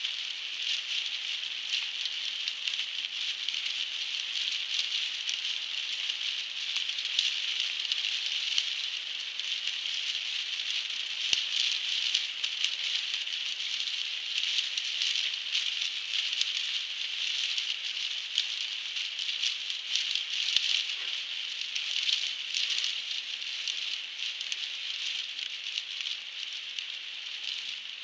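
Heavy rain hitting a car's roof and windscreen, heard from inside the moving car: a steady dense hiss of drops with scattered sharper ticks.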